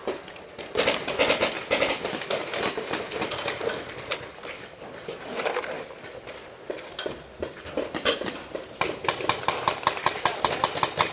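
Paintball markers firing: scattered strings of sharp pops, then a fast, even stream of shots from about nine seconds in.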